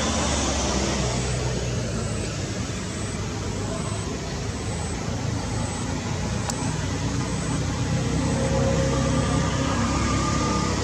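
Steady low rumble of motor vehicle traffic.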